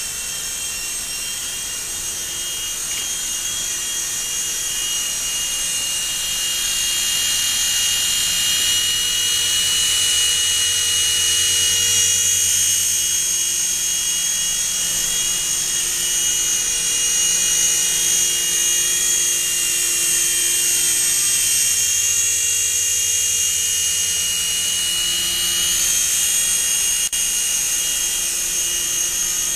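Ninco NincoAir 180 Alu G coaxial RC helicopter in flight: the steady high-pitched whine of its small electric motors and whirring rotors, wavering slightly in pitch and growing a little louder after the first several seconds.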